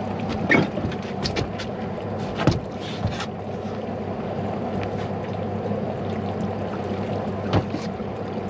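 Boat engine idling steadily, with a few short sharp splashes and knocks as a shortnose sturgeon is grabbed by the tail at the side of the hull and lifted out.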